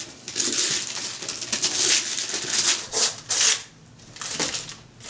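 Gift-wrapping paper being torn and crumpled off a present: a run of rustling rips for about three seconds, then a brief pause and a little more tearing near the end.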